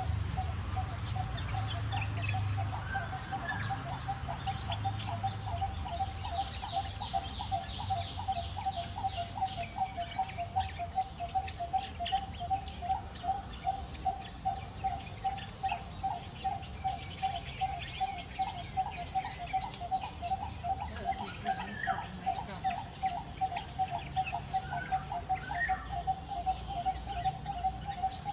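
A bird repeating one short note over and over, about two or three notes a second, with scattered higher chirps from other birds.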